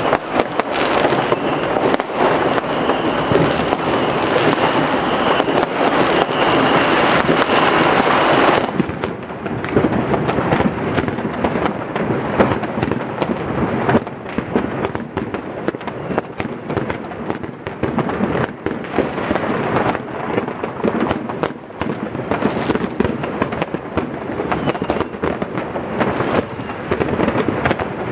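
Many fireworks going off at once: a dense, continuous crackle packed with sharp bangs. About nine seconds in the sound changes abruptly to a thinner run of separate bangs and crackles.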